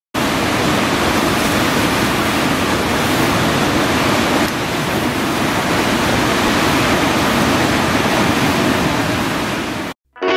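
Föhn storm wind blowing across a wave-tossed lake: a loud, steady rushing noise of wind and breaking waves, with a slight dip about four and a half seconds in. It cuts off suddenly near the end.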